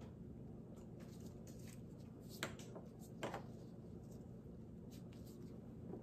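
Gloved hands handling a plastic saline flush syringe: a few faint clicks and rubs, with two louder clicks about two and a half and three and a quarter seconds in, over a steady low room hum.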